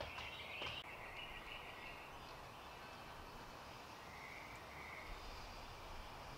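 Faint outdoor ambience with a high, buzzy animal trill lasting about two seconds at the start, two soft clicks near the beginning, and two fainter short trills later on.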